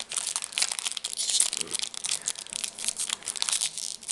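Pokémon card booster pack wrapper crinkling and tearing as it is worked open by hand, a continuous run of irregular crackles.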